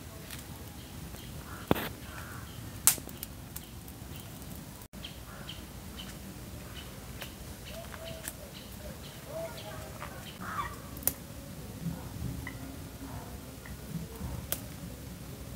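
Outdoor garden ambience with small birds chirping in short, repeated high notes and a few lower calls, broken by several sharp clicks, the loudest about three seconds in.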